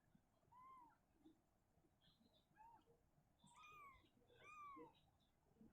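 Young kittens mewing faintly: about four short, high-pitched mews that rise and fall, two of them close together in the middle and slightly longer.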